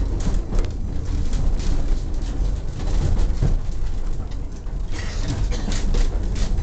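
An old wooden train carriage rolling along the rails: a steady low rumble with irregular knocks and rattles from the body and wheels. The rattling gets sharper near the end.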